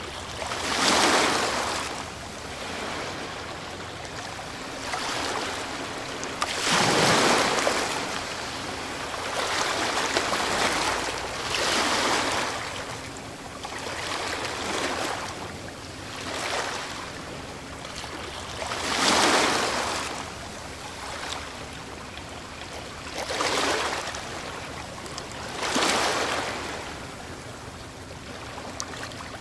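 Ocean waves breaking on the shore one after another, each a rushing surge of surf that swells and falls away every few seconds, some much louder than others.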